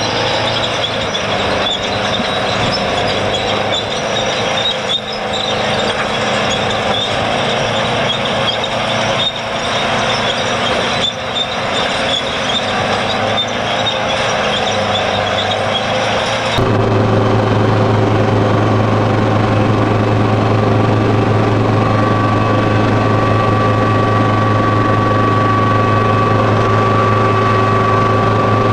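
Heavy diesel earthmoving machinery working, a busy engine noise with occasional knocks. About halfway through it cuts abruptly to a louder, steadier diesel drone with a low hum and a thin high whine.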